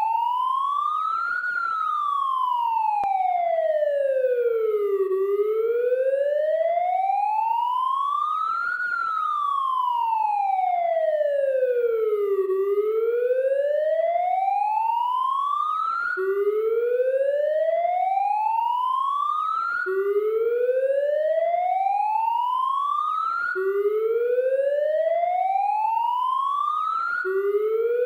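Police siren wailing, its pitch gliding slowly up and down twice over about seven seconds each time. About halfway through it switches to a pattern of rising sweeps that snap back down to the low note, roughly one every four seconds.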